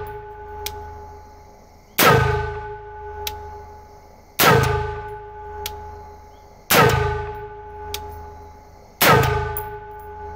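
Four AR-15-style rifle shots, evenly spaced about two and a half seconds apart. Each is followed by a long metallic ringing decay and a faint knock under a second later. The WD-40-soaked rounds are firing normally, with no misfires.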